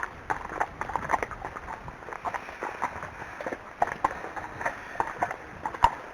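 Unshod hooves of a ridden Arabian horse striking the ground at a walk, an uneven clip-clop of about three knocks a second, with the sharpest knock near the end.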